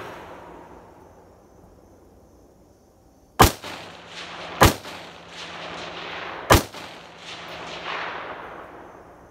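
Rifle fired three times at an irregular pace, each shot followed by a long rolling echo across open ground; the echo of an earlier shot fades over the first few seconds.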